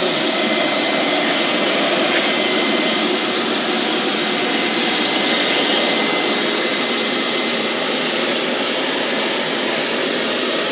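A Hoover carpet and upholstery shampoo vacuum running steadily as a loud rush with a faint high whine, its clear upholstery tool drawing dirty cleaning solution out of cloth car-seat fabric.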